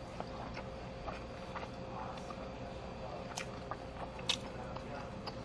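A person eating: chewing, with a few sharp clicks of chopsticks against dishes, over a steady background hum.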